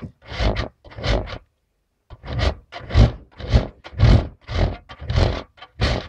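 A bar of baby soap scraped up and down a metal box grater in quick, even strokes, about two or three a second, with a short pause about a second and a half in. The soap grates easily.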